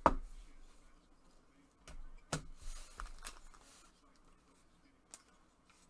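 Trading cards and foil card packs being handled on a table. A sharp tap comes right at the start, then a few lighter clicks and a short rustle of wrapper about two to three seconds in.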